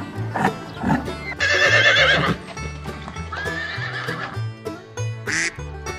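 A horse neighing, one loud quavering whinny about a second and a half in, over background music with a steady bass line.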